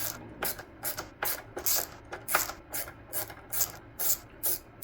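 A hand screwdriver backing a screw out of a plastic headlight housing: short rasping scrapes, roughly two to three a second, one with each turn.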